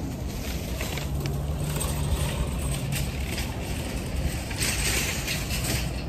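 A car's engine running close by, a steady low rumble with a hum that comes and goes, and a louder rush of noise about four and a half seconds in.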